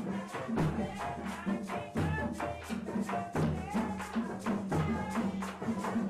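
Marimba, hand drums and shakers playing together with a steady beat, the strikes coming several times a second.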